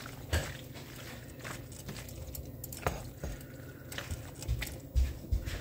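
Scattered light clicks and knocks of kitchen utensils and containers being handled while seasoning a pot, with a couple of low thumps about five seconds in.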